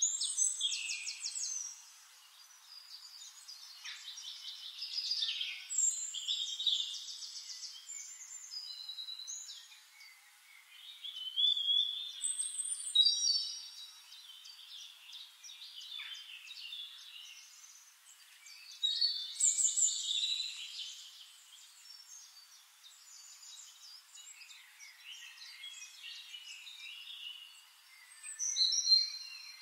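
Forest songbirds singing: several high chirping and trilling songs overlap in bursts every few seconds, with quieter stretches between.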